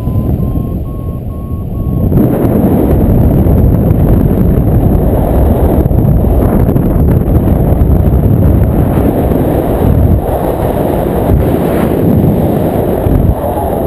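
Wind rushing over the microphone of a camera on a flying paraglider, a loud low rumble that jumps up sharply about two seconds in as the airspeed rises. Under it for the first two seconds, a paragliding variometer beeps in quick, high, evenly spaced tones, the sound it makes when the glider is climbing.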